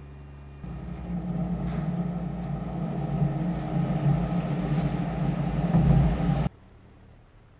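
Dump truck's engine and hoist running with a steady drone while its load of asphalt millings slides out of the tipped bed. The drone starts about half a second in and cuts off suddenly about a second before the end, leaving only a faint hum.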